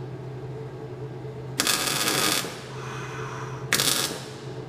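Arc welder laying two short tack welds, one burst lasting just under a second about a second and a half in, then a shorter one near the end, to tack the swing arm to the kart's chassis. A steady low hum runs beneath.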